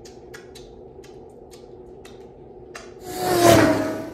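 Wet mouth clicks and smacks from chewing food and licking fingers. About three seconds in, a loud rushing swell rises and fades over about a second.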